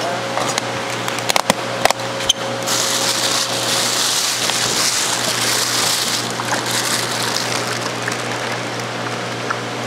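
A few sharp knocks and clicks as the shipping box and its styrofoam lid are handled, then plastic fish bags rustling and crinkling for a few seconds, over a steady low hum.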